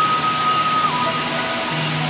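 Background music: a held melody note that steps down in pitch about a second in, over low sustained bass notes and a steady rushing noise.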